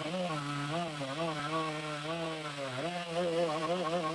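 Chainsaw running hard through wood, its engine pitch wavering up and down continuously as the load on the chain changes.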